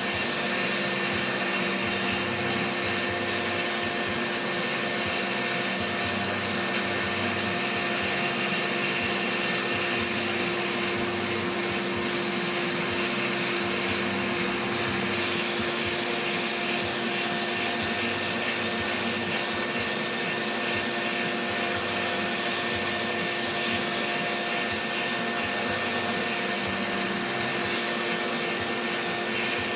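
CNC milling machine running a cut: a steady whine from the spindle over a constant rushing hiss, unchanging throughout.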